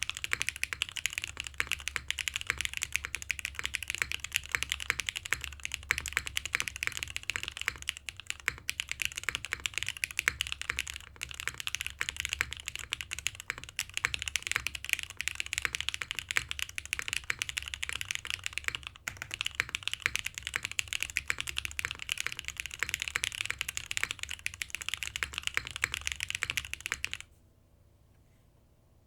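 Continuous fast typing on a custom mechanical keyboard: a Merisi Sessantacinque top-mount board with a carbon fibre plate, lubed Zaku switches, TX stabilisers and GMK keycaps, giving a clacky sound. The typing stops abruptly near the end.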